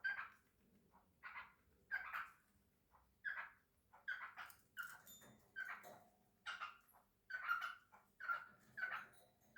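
Cockatiel chirping in a steady run of short calls, about one and a half a second.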